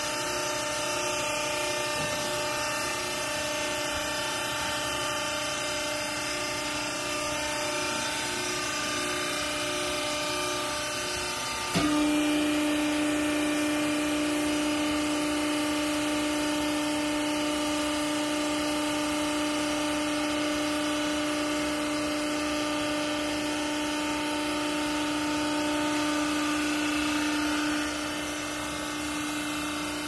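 Hydraulic power unit of a vertical cloth baler running with a steady hum and whine. About twelve seconds in, a click is followed by the pump note jumping louder and slightly lower as the ram presses the clothes down; it eases back near the end.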